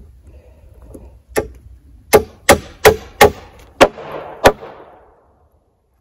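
Hammer blows on wooden boards: a single blow, then four quick blows about a third of a second apart, followed by two slower ones.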